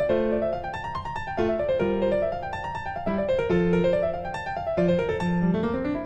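Background piano music: runs of notes climbing and falling over held bass notes, repeating about every second and a half.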